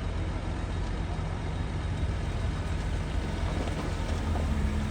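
Heavy diesel earthmoving machinery running steadily with a low engine drone. A higher engine note joins about four seconds in.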